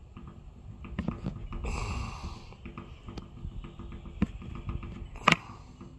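Handling noise from fingers on a phone held outdoors: low rubbing and rumble, a swell of noise about two seconds in, and two sharp clicks near the end, the second louder.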